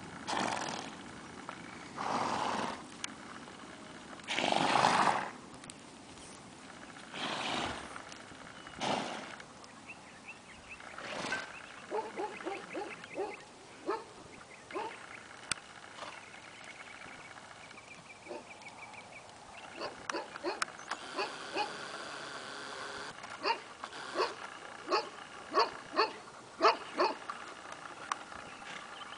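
Short animal calls repeated in quick runs through the second half, with a few longer rushing noises in the first part.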